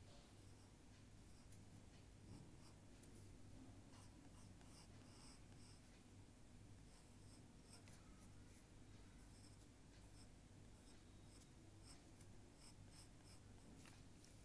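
Faint scratching of a drawing tool on paper, in many short strokes that come in quick clusters, over a low steady hum.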